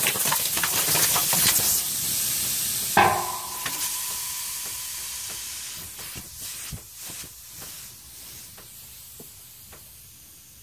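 Compressed air hissing out of a Hummer H2's rear air spring as its line is released, the airbag deflating. The hiss is loud at first, swells with a brief whistle about three seconds in, then fades steadily as the bag empties.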